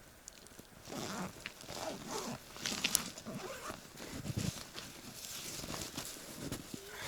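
Irregular rustling, soft crunching and dull thumps of a person moving about and handling gear in snow.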